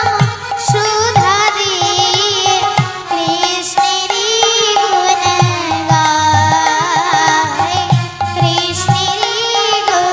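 Bengali kirtan music: a melody with wavering, ornamented pitch over regular hand-drum strokes.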